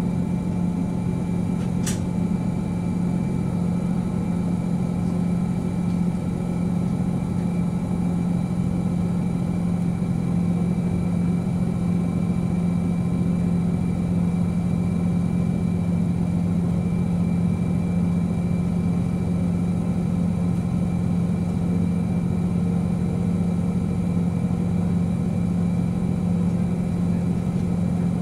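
KiHa 40 series diesel railcar idling while standing at a platform: a steady, even engine hum. A single short click about two seconds in.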